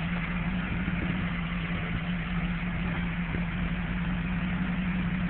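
A 375-horsepower car's engine idling steadily with a constant low hum as the car creeps down a driveway.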